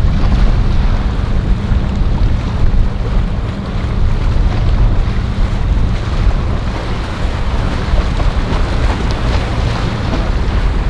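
Boat engines running steadily, with water rushing and wind buffeting the microphone.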